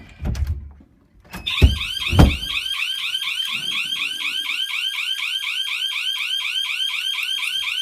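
Home alarm system's electronic siren going off with a loud, fast warble of short rising sweeps, set off by a door being opened. Low door thumps come just before the siren and again in its first second.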